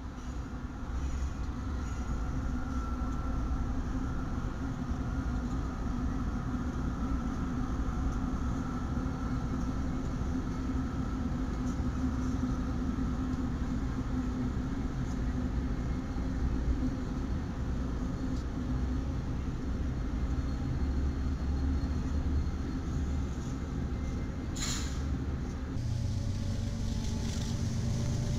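Diesel-electric BNSF freight locomotives passing at low speed: a steady engine rumble with a droning tone. About 25 seconds in, the sound cuts abruptly to another diesel locomotive's lower hum.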